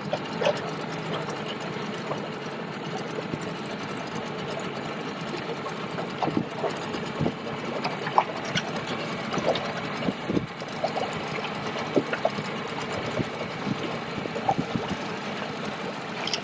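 Schiller water bike being pedalled hard: a steady mechanical whirring from its pedal-driven propeller drive, with scattered short ticks and knocks.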